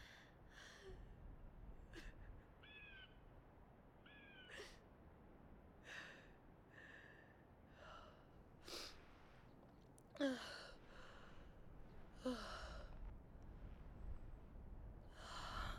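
A young woman crying quietly: shaky breaths and sniffs, a couple of short whimpers in the first few seconds, and two louder sobs with a falling voice about ten and twelve seconds in.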